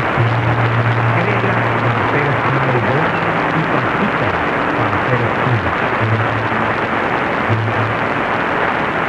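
AM radio receiving Radio Dinámica 1490 AM from about 1430 km away, deep under steady static hiss, with music just coming through as a low line of held notes.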